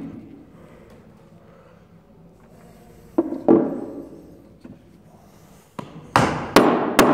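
Steel claw hammer knocked and set down on a wooden workbench top: a sharp knock at the start, a couple of louder clunks a little after three seconds, then several sharp, loud strikes with ringing in the last second.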